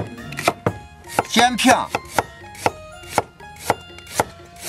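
Chinese cleaver chopping down onto a thick wooden chopping board, cutting scallions into short segments and then slicing ginger. The sharp chops come roughly every half second.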